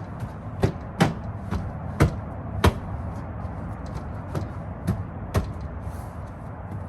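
Irregular series of sharp knocks and clicks, the loudest in the first three seconds, as a car's door trim panel and its parts are pressed and tapped back into place.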